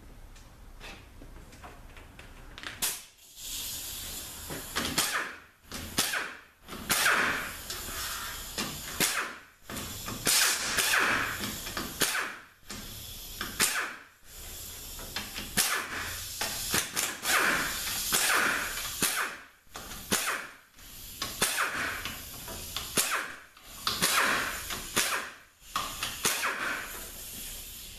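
Power tool spinning out the 42RLE transmission's 10 mm valve body bolts, running in many short bursts of a second or so with brief pauses between.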